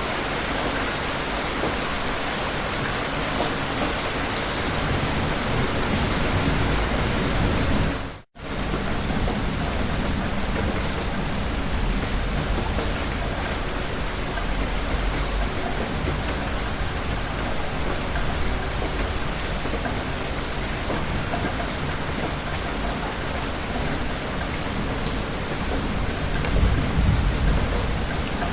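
Steady heavy rain falling, with low rumbles of thunder swelling now and then, the strongest near the end. The sound cuts out completely for an instant about eight seconds in.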